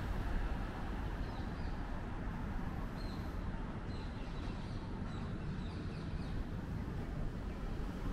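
Faint bird chirps, a scatter of short high calls from about one to seven seconds in, over a steady low rumble of outdoor city ambience.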